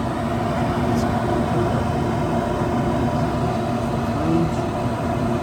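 Goodman gas furnace running just after ignition: its burner flames and draft inducer motor make a steady rushing roar with a low hum, the circulating blower not yet running.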